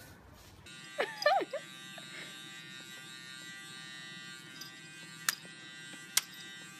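A steady electric buzz, like a small motor running, with a short wavering animal cry about a second in and two sharp clicks near the end.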